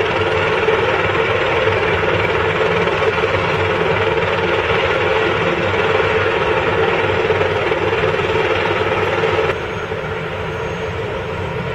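Airbus EC130 helicopter running on its pad with the rotor turning: a steady turbine and rotor noise that drops abruptly in level about nine and a half seconds in.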